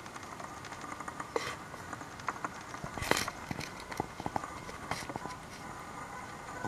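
Kayak paddles splashing briefly in the water three times, among scattered light taps and knocks on the plastic kayaks.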